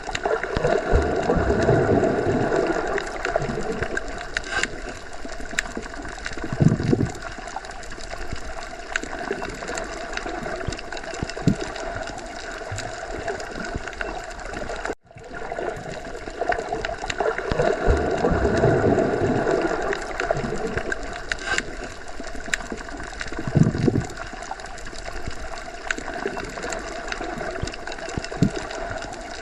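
Underwater ocean ambience: a steady wash of muffled water with slow low swells, gurgles and scattered faint clicks. The same stretch loops, with a brief dropout about halfway through, after which the swell and a low thump come around again.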